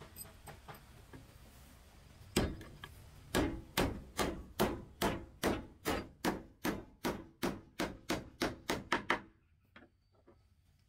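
Hammer driving a nail into a wooden plank: a first blow, then a steady run of about twenty blows that come faster toward the end and then stop.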